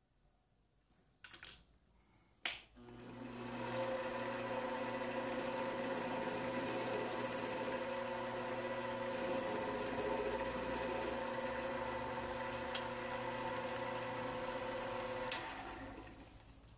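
Mini metal lathe switched on with a click about two seconds in, its motor and spindle winding up to speed and then running steadily with a whine of several fixed tones. Near the end it is switched off with another click and spins down.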